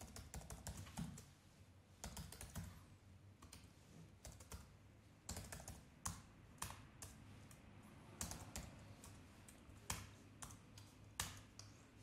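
Computer keyboard typing, faint, in short runs of keystrokes with brief pauses between them.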